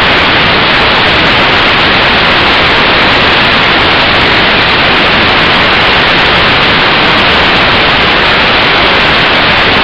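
Loud, steady static-like rushing noise from a toy RC helicopter in flight, its rotors and motors picked up by a lighter spy camera's tiny microphone mounted on it.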